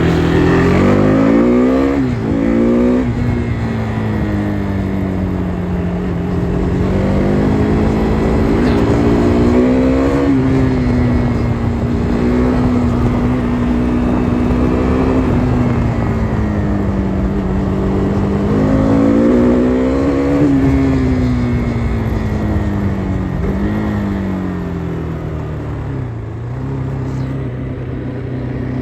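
KTM RC 390's single-cylinder four-stroke engine under way. Three times the revs climb and then drop sharply, as at an upshift, holding steady between. Near the end the revs fall away and settle low.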